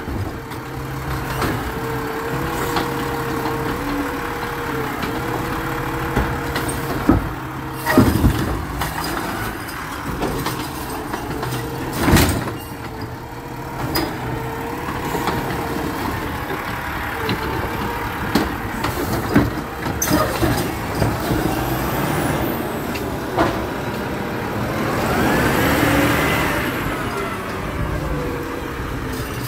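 Garbage truck working: a steady mechanical whine under the engine, with several sharp clanks and knocks. Near the end the engine revs up and back down.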